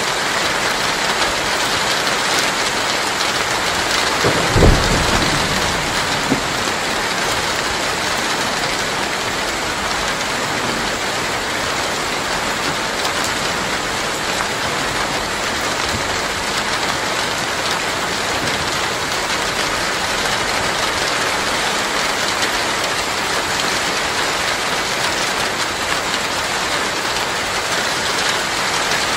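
Heavy rain falling steadily, a dense even hiss of drops. About four and a half seconds in there is a brief low rumble, the loudest moment.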